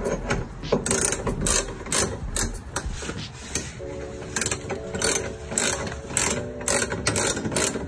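Hand ratchet wrench clicking in short runs of strokes as a tie bar mounting bolt is run down into the subframe bracket.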